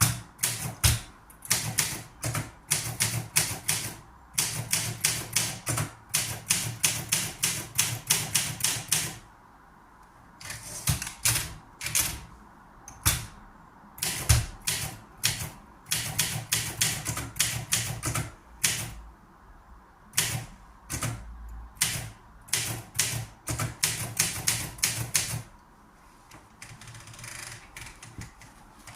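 Manual typewriter being typed on: runs of sharp key strikes, several a second, broken by short pauses, the first about nine seconds in. The strikes grow fainter near the end.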